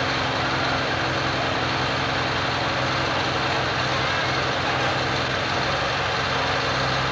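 Ford super stock pulling tractor's engine idling steadily while it is hitched to the pulling sled.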